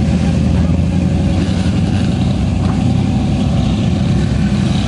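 Lifted 4x4 mud truck's engine running at a fairly steady pitch as its big tires churn through mud.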